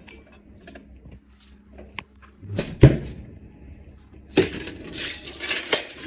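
Clinking and clattering of kitchenware: scattered small clicks, one loud knock about three seconds in, then a busier run of clatter near the end.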